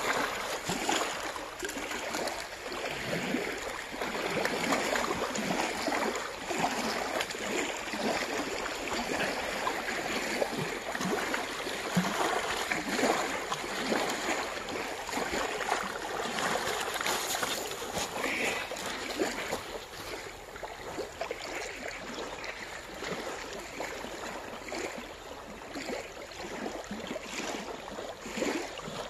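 Water splashing and lapping at the river's edge as a large fish is hauled in on a hand line and thrashes in the shallows. The splashing eases off for the last third or so.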